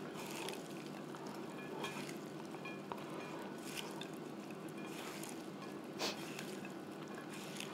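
Hands tossing and squeezing oiled, seasoned strips of beef, peppers and onion in a ceramic bowl: soft, wet squishing and rustling in several short handfuls.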